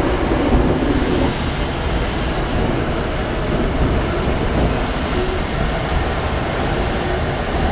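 Indian Railways WP-class steam locomotive heard from inside its cab while running: a steady, loud rumble of the engine and wheels with a steady high hiss over it.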